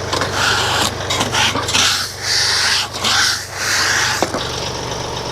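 Sawmill engine idling steadily under a run of about six short hissing bursts, which end in a sharp click about four seconds in.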